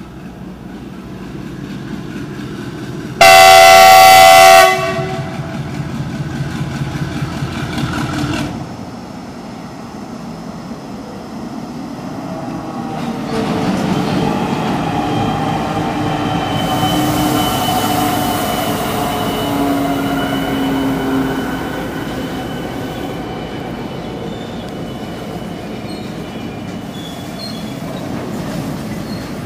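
GE WDG6G (ES57ACi) diesel locomotive, with a turbocharged V16 GEVO engine, passing at the head of a freight train. It sounds its horn once, loudly, about three seconds in, for about a second and a half. The engine runs loud as the locomotive goes by, and the covered wagons then roll past with a steady clatter of wheels.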